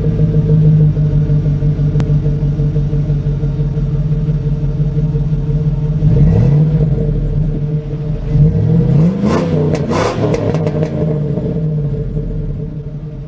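A motor vehicle engine running steadily, then revved twice, its pitch rising each time, with a few short clicks around the second rev; the engine sound fades near the end.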